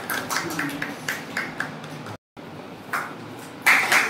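A quick run of light clicks, each with a short ringing ping, several a second. The sound drops out for a moment a little past halfway, and near the end a loud burst of clapping and voices breaks in.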